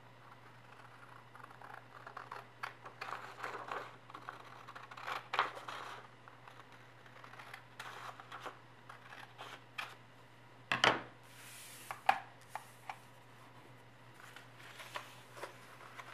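Scissors cutting through a sheet of 80 g/m² paper in a series of snips with paper rustling, over a steady low hum. A few sharp loud clicks come past the middle, followed by more rustling of paper being handled and folded.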